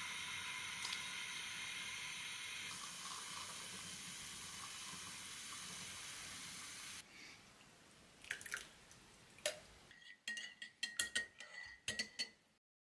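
Stovetop moka pot brewing: a steady hissing gurgle as coffee bubbles and spurts up into the top chamber, stopping abruptly about seven seconds in. Near the end, a metal spoon clinks repeatedly against a ceramic mug while stirring coffee into milk.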